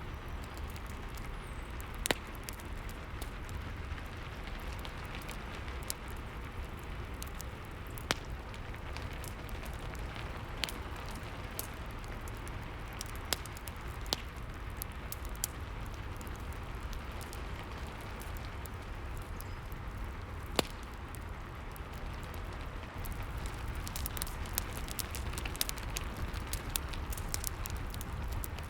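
Steady rain mixed with a crackling wood fire. Scattered crackles and a few loud sharp pops run over a low, even rumble, and the crackling grows denser near the end.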